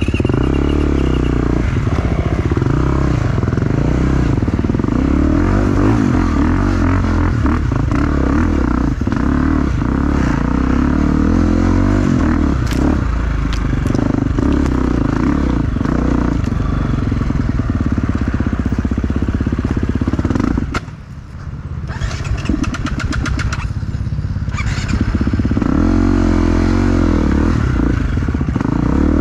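Enduro motorcycle engine running hard on a trail ride, its pitch rising and falling with the throttle, with a few sharp knocks. About 21 seconds in it drops off briefly, then comes back up.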